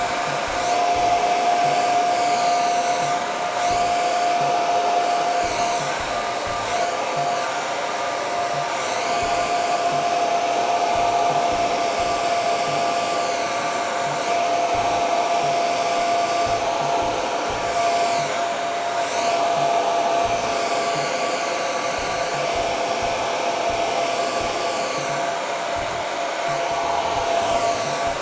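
Handheld hair dryer running continuously, a rush of blown air with a steady whine, blowing into hair; the hiss shifts as the dryer is moved around the head.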